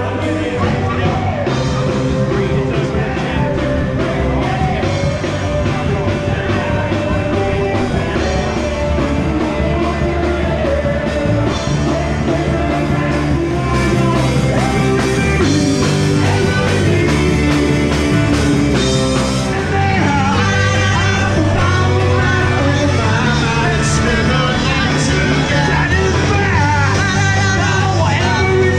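Rock band playing live with a singer, guitar and drums, in a steady loud run of music.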